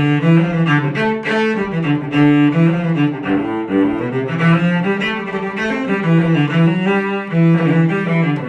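Forte3D 3D-printed carbon fiber cello played solo with the bow: a continuous, lively run of notes that change pitch every fraction of a second.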